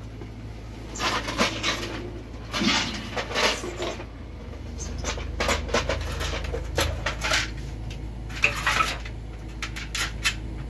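Hard plastic clicking, tapping and rustling as a yellow plastic boiler control-board housing is handled and worked by hand, a string of short sharp clicks over a steady low hum.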